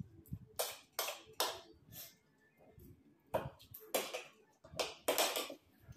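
Metal spoons scraping and clinking against ceramic plates as chatpate is scooped up, in a series of about eight short scrapes.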